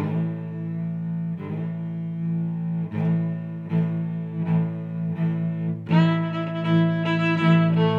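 Instrumental background music of held notes that change every second or so, with higher notes joining about six seconds in.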